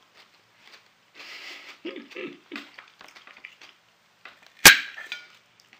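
A metal fork strikes a porcelain plate once, a sharp clink with a short ringing tail about three-quarters of the way in, with a few softer breath and mouth noises before it.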